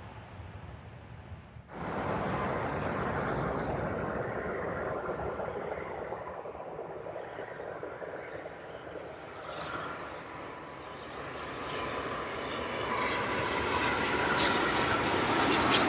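Jet airliner landing: engine noise that cuts in suddenly about two seconds in, then grows steadily louder over the last few seconds, with a thin high whine over the roar.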